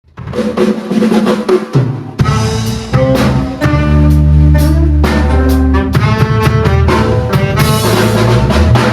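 Band music without vocals: a drum kit hitting a steady rhythm over bass and pitched melody instruments, with a short drum break about two seconds in.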